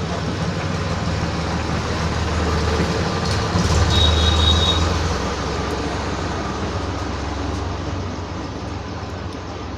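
Steady low rumble of background road traffic, swelling louder about three and a half seconds in as a vehicle passes, with a brief high squeal at its peak.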